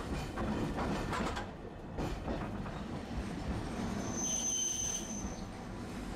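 Street tram running on its rails, heard from inside the driver's cab: a steady low rumble of wheels and running gear with a few clicks about a second in. From about four seconds in, a high steady wheel squeal lasts about a second.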